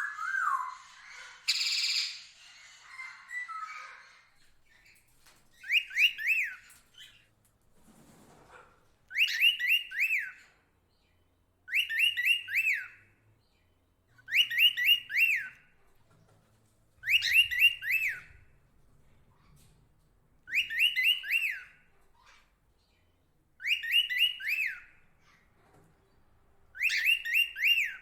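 A bird repeating the same short call about every three seconds, eight times, each call a quick run of three or four rising-and-falling whistled notes. It opens with a single falling whistle and a brief harsh squawk-like burst.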